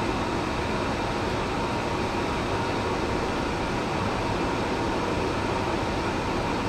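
Steady rush of airflow and air-conditioning noise on an Airbus A350 flight deck in flight, with a faint steady tone.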